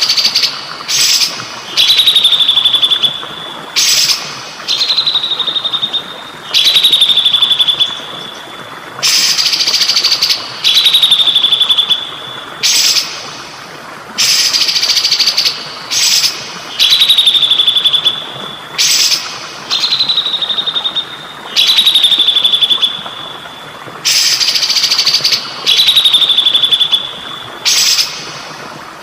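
Songbird song repeated over and over: short harsh bursts alternating with high whistles that slide down and hold on one note, about one phrase every two seconds. A steady trickle of water runs underneath.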